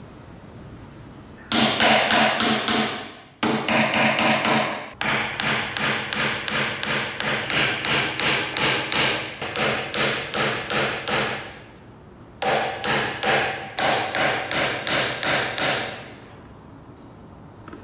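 Hammer tapping small nails into a wooden board: quick, even blows of about three a second with a short ring, in three runs with brief pauses.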